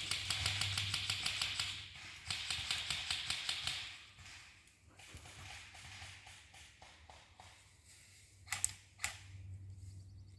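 Airsoft guns firing on full auto: rapid, even clicks at about a dozen a second, in two long bursts, then fainter bursts. Two sharp cracks come near the end.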